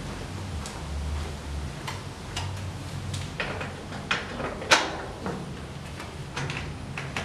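Scattered clicks and knocks from a tarp-covered door in a carport wall being handled and unfastened at its bottom and top. The sharpest knock comes about four and a half seconds in.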